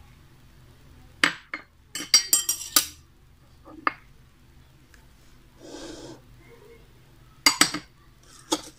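Glass bowls and a spoon clinking against each other and the rim of a saucepan as ingredients are tipped into milk: scattered sharp clinks, with a quick run of them about two seconds in. There is a soft rustle about six seconds in.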